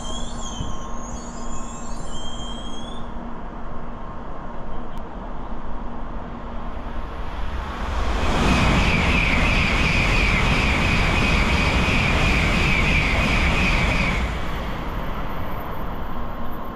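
A Tokaido Shinkansen train passes through the station at high speed: a loud rush of wheel and air noise with a steady high whine. It starts about halfway in, lasts about six seconds and cuts off. Before and after it there is a low steady hum.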